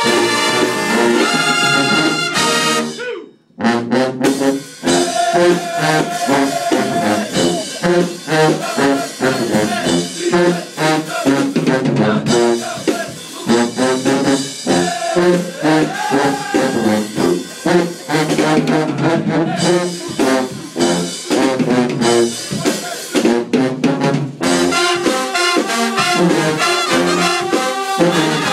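Band of trumpets, trombones, sousaphone and clarinet, backed by a drum kit, playing a loud up-tempo piece. A few seconds in the band cuts off together for a short break, then comes back in.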